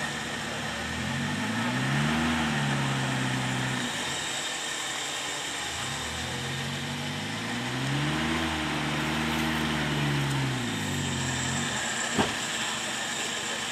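A four-wheel-drive off-road vehicle's engine revving up and easing back down twice over a steady rushing noise, with a single sharp knock near the end.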